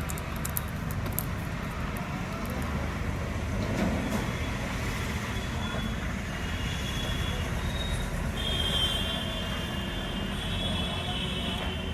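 Steady road traffic noise with a low hum, with a few light clicks in the first second and faint high tones coming and going in the second half.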